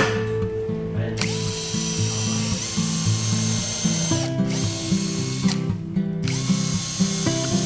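An electric power tool runs in two bursts of about three seconds each, with a high whine: starting about a second in, stopping near four seconds, and starting again about six seconds in. Background music plays underneath.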